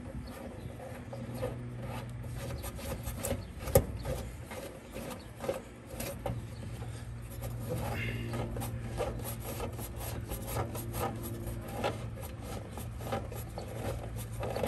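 Irregular rubbing, scraping and clicking of hands and wires being worked inside an air conditioner condenser's electrical compartment while a nut on a wire connection is tightened, with one sharp click about four seconds in. A steady low hum runs underneath.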